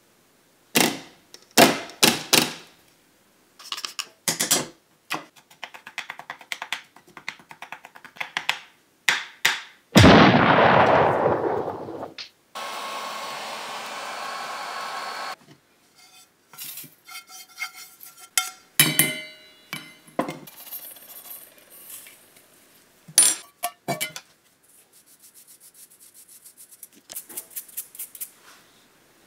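Kitchenware being handled: a plastic strainer knocked several times against a frying pan, a heat gun blowing steadily for a few seconds around the middle, then scraping, clinking and tapping as the crystals are stirred and a metal mesh sieve is worked over the pan.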